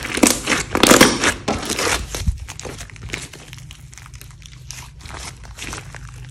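Hands kneading and stretching a large lump of thick, glossy slime: dense wet crackling and squishing, loudest in the first two seconds, then thinning to scattered small pops and crackles.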